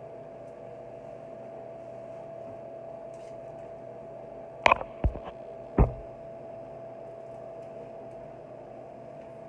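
Steady background hum in a small tiled bathroom, and about halfway through, three or four sharp knocks in quick succession around the bathtub.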